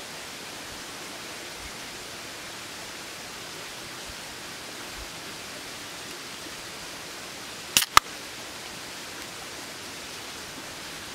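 Aluminium drink can opened by its ring-pull: two sharp cracks about a fifth of a second apart as the tab breaks the seal, over a steady background hiss.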